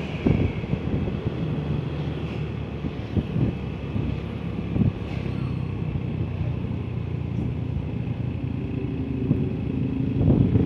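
Road vehicle engines running in traffic: a steady low rumble with scattered knocks, settling into a steadier engine hum in the last couple of seconds.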